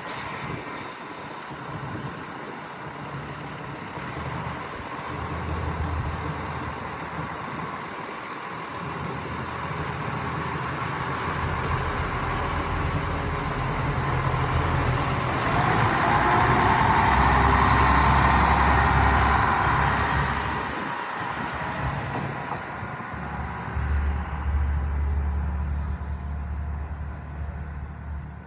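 Kishu Railway single-car diesel railcar running past, its engine and wheel noise building to loudest a little past halfway, then easing off with the engine's low rumble still strong.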